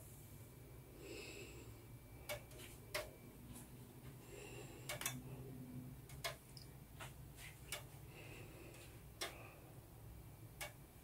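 Faint, irregularly spaced clicks and light taps, about ten in all, over a low steady hum.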